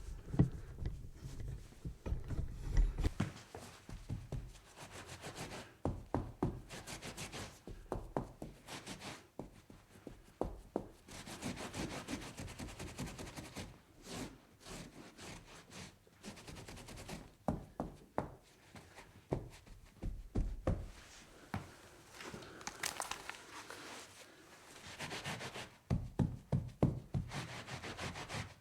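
A cloth wiping and scrubbing across a table surface in irregular rubbing strokes, with scattered short knocks and taps against the table.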